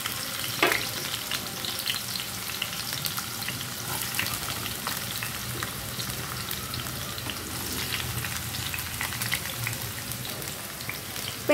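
Chopped onions sizzling and crackling in hot oil in a frying pan, being fried toward golden brown. A single sharp click sounds just under a second in.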